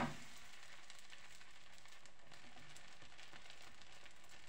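Yeast pancake sizzling and crackling in hot oil in a frying pan, with a soft thud at the start as it is turned over onto its second side.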